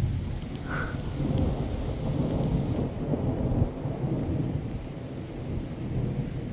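Thunder rumbling continuously through a rainstorm, swelling and easing, over the steady hiss of falling rain. The rumble eases a little near the end.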